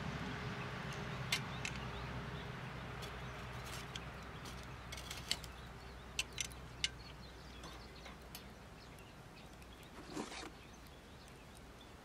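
Wood fire burning in a small titanium fire stand: a steady low rush that slowly fades, with scattered sharp clicks and pops. A short rustling scrape about ten seconds in.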